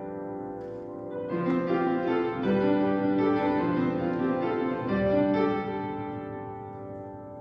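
Intro music played on piano, slow chords that fade out near the end.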